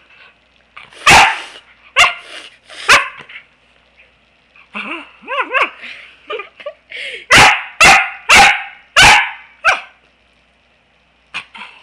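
Pembroke Welsh corgi play-barking close to the microphone: three sharp barks in the first few seconds, short whining yips in between, then a quick run of five barks a little past halfway.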